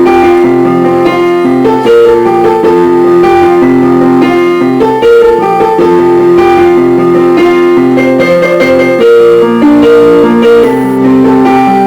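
Instrumental music of held keyboard chords with no singing: an interlude in a church choir's song.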